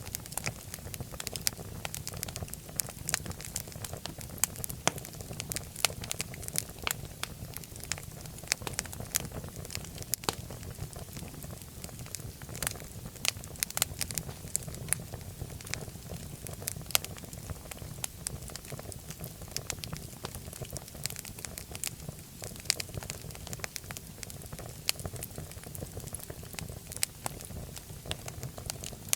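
Fireplace fire crackling, with frequent irregular sharp pops and snaps over a steady low rumble of the flames.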